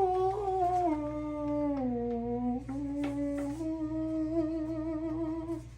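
A person humming one long drawn-out note that slides down in pitch, then steps back up and holds steady before stopping, with a couple of faint clicks from handling about three seconds in.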